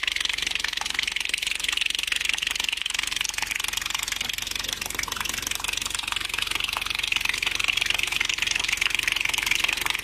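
Water from a garden hose running in a thin stream past a subwoofer and splashing into a plant pot: a steady hiss of running water, with a low, even buzz from the subwoofer playing a very low test tone.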